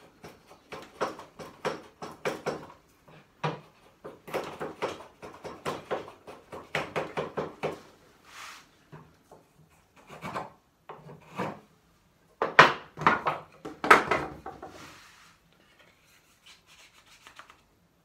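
A hand chisel paring timber, trimming the tenon of a corner bridle joint: a run of short scraping strokes, a few a second, the loudest ones about two thirds of the way in, then tailing off near the end.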